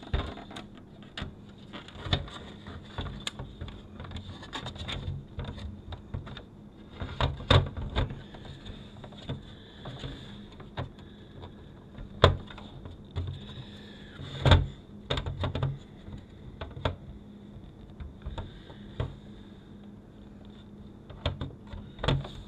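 Hands handling an opened car DVD entertainment unit on a wooden table, working a flat ribbon cable into its metal-and-plastic housing: irregular clicks, taps and knocks with soft rubbing between them, a few louder knocks scattered through.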